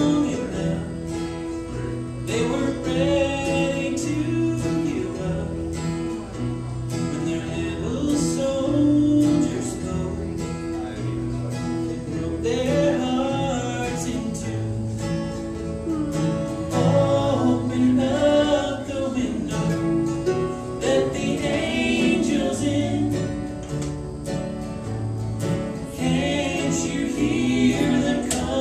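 Live bluegrass band singing with harmony vocals over acoustic guitars, fiddle, mandolin and banjo.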